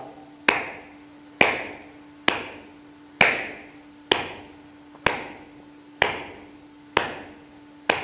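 Open palm slapping the bare inner ankle in a steady self-massage patting rhythm: nine sharp slaps, about one a second, each ringing briefly.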